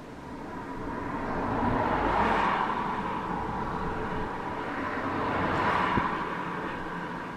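Two cars passing on the road one after the other, their tyre and engine noise swelling and fading: the first peaks about two seconds in, the second around five to six seconds in. A single sharp click sounds as the second car goes by.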